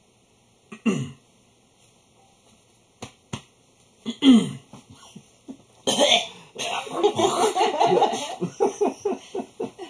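A person coughs, with short throaty bursts about a second in and again near four seconds, then breaks into several seconds of choppy, unworded laughter.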